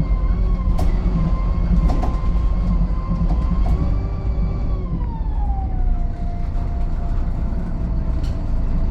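VDL SB200 Wright Pulsar 2 bus running, a high vacuum-cleaner-like whine over the engine rumble. The whine holds steady, then falls in pitch about five seconds in and stays lower as the bus eases off, with a few light rattles and clicks.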